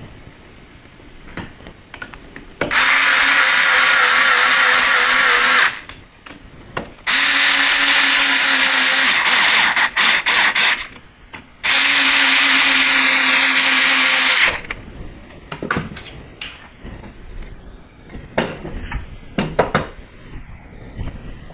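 Small cordless electric screwdriver running in three runs of about three seconds each at a steady pitch, driving screws into an aluminium-extrusion CNC Z-axis. A quick series of clicks follows the second run, and light knocks of metal parts being handled come near the end.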